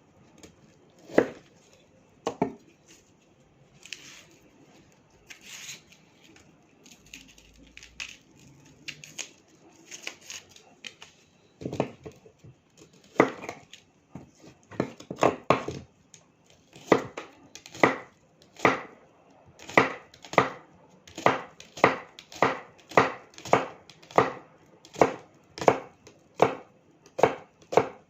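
A knife cutting a fresh onion on a chopping board. There are a few scattered cuts at first, then steady chopping at about two strokes a second through the second half.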